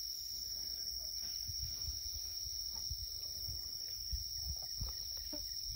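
Evening insect chorus: a steady, high-pitched, unbroken chirring. Low bumps of handling noise on the microphone come and go underneath.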